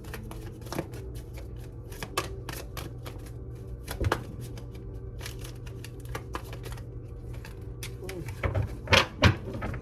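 Tarot cards being shuffled by hand: a quick, irregular run of light card flicks and clicks, with a few louder knocks near the end.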